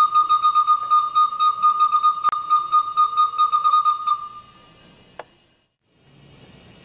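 A single high whistle-like tone, held at one pitch and pulsing rapidly about five times a second, fading out about four seconds in. A sharp click cuts through it partway, another follows after it fades, and a faint low hum remains near the end.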